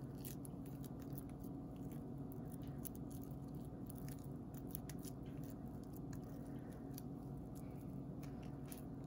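Damp grated soap shavings crackling faintly as hands squeeze and press them tightly into a ball: scattered small clicks and crunches over a steady low hum.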